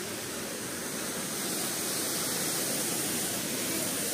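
Steady rush of water pouring over a dam spillway, an even hiss with no breaks that swells slightly about a second in.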